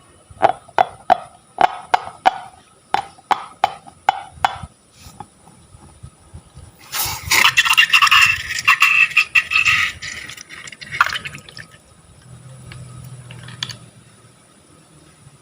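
A quick series of about a dozen sharp clicks, roughly three a second, then a few seconds of liquid pouring into a container, loudest about halfway through and tailing off with a few small splashes and taps.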